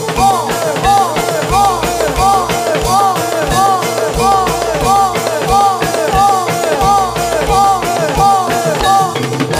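Jathilan dance accompaniment music: fast, loud drumming under a repeating melodic figure of short notes that rise and fall in pitch, nearly three times a second.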